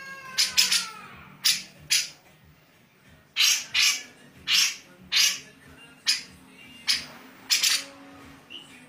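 Cucak jenggot (grey-cheeked bulbul) giving rough, rasping calls: about a dozen short hoarse bursts, often in quick pairs, with pauses of about a second between them.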